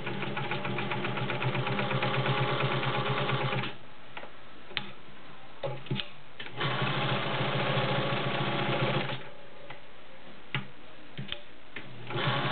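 Vintage Pfaff 130 sewing machine stitching a zigzag through fabric, running smoothly in three spells. It stops twice, with a few sharp clicks in the pauses.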